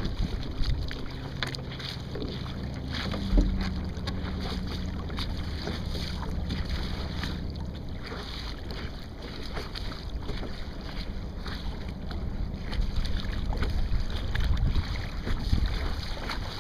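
Wind buffeting the microphone over water rushing and slapping along the hull of a Sunfish sailboat under way, with one brief thump about three and a half seconds in.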